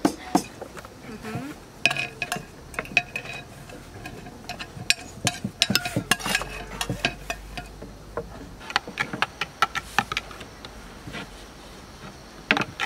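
Irregular clicks and taps of kitchen utensils: a metal spoon clinking and scraping in a glass jar as garlic is stirred into yogurt, and a wooden rolling pin knocking on a wooden board as yuxa dough is rolled thin.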